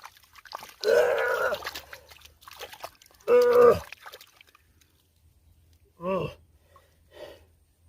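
A man's short wordless exclamations, four in all, the loudest two in the first half, with faint trickling and splashing of water between them.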